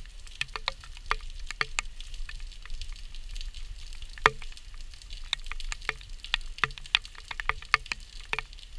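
Rain falling: a steady hiss with many irregular raindrop taps, some of them sharp and close.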